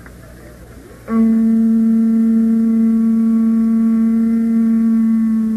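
Conch shell trumpet (Hawaiian pū) blown in one long, steady, loud note that starts about a second in and is held without a break.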